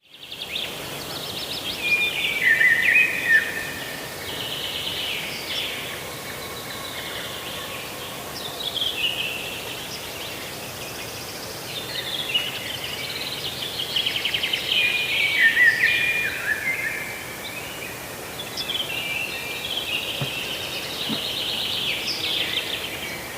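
Songbirds singing: repeated phrases of rapid trills and falling notes, loudest about three seconds in and again around fifteen seconds in, over a steady background hiss.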